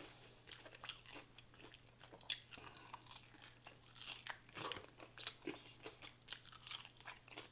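A person biting and chewing crispy fried food, with soft irregular crunches and mouth clicks.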